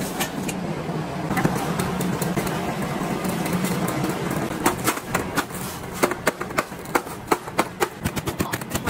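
Steady background hum, then from about halfway through a run of sharp cracks as a rolling pin strikes a hardened sheet of brittle and breaks it into pieces, the strikes coming faster near the end.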